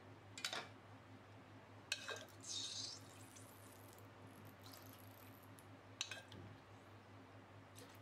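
Metal ladle clinking against a pot while excess frying oil is scooped out: a few faint clinks, with a brief trickle of oil about two and a half seconds in.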